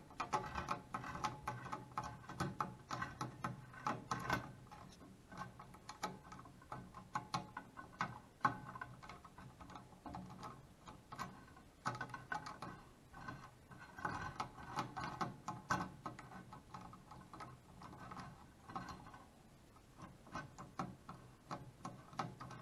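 Lead screw being spun by hand as it threads through a nut block, giving irregular mechanical clicking and ticking that comes in spurts with short pauses between.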